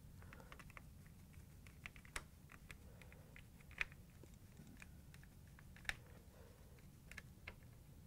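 Faint, scattered clicks and ticks of a small Phillips screwdriver turning screws into a refrigerator dispenser control board's plastic panel, with a few slightly louder clicks about two seconds apart.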